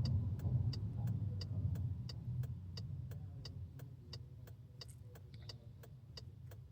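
Car engine idling with a fast, even ticking over it, about three to four ticks a second. The sound grows gradually quieter.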